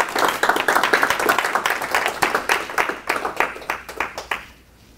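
A small audience clapping after a talk, the applause dying away near the end.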